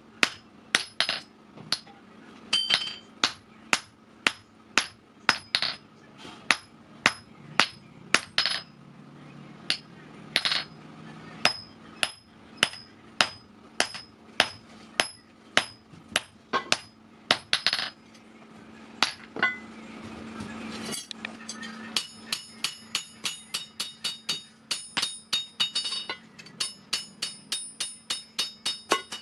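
Hand hammer blows on hot steel over an anvil, forging a steel vehicle axle: a long run of sharp strikes, roughly two a second, each leaving a high metallic ring. About twenty seconds in the blows stop briefly under a rising hiss, then resume at a quicker pace.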